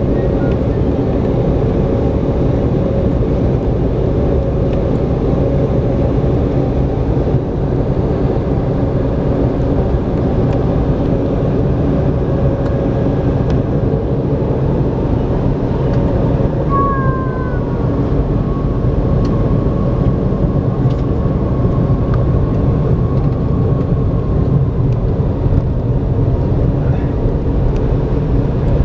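Cabin noise of an Embraer 190 taxiing: its General Electric CF34-10E turbofans run steadily at taxi power under the low rumble of the airliner rolling along the taxiway.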